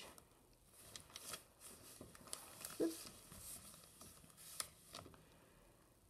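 Sharpie marker scratching over cardstock in a series of short, faint strokes as it traces an outline.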